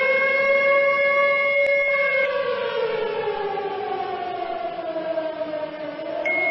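Civil defence air-raid siren wailing for an attack warning: its pitch holds high for about two seconds, slides slowly down, and starts to climb again near the end. A steady high tone sounds over it at first, stops about two seconds in, and comes back at the end.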